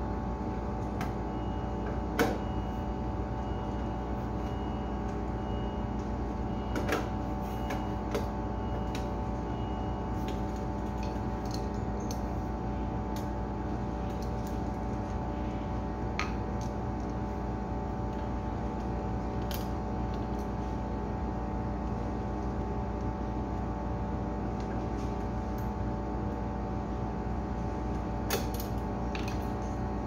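Steady hum of the Sanyo refrigerator's machinery running, with a few sharp metallic clicks and knocks as the sheet-metal control box cover is handled and screwed back on.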